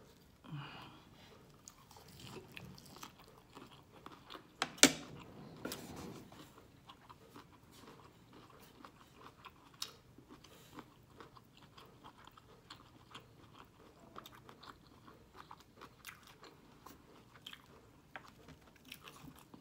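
Biting and chewing a shrimp and vegetable stir fry with lettuce leaves: a run of small, irregular wet crunches and mouth clicks, with one sharp, louder crunch about five seconds in.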